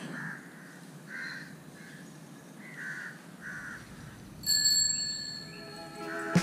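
Crows cawing several times, then a single ring of a bicycle bell about four and a half seconds in that fades out over a second or so.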